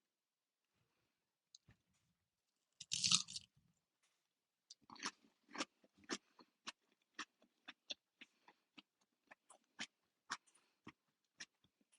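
A person chewing food close to the microphone: one loud crunchy bite about three seconds in, then steady wet chewing at about two and a half chews a second.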